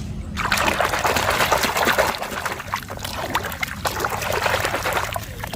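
Water running and splashing over a muddy toy as it is rinsed clean. It starts about a third of a second in and eases off just before the end.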